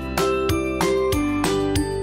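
Upbeat theme music with a steady beat and a bright, changing melody.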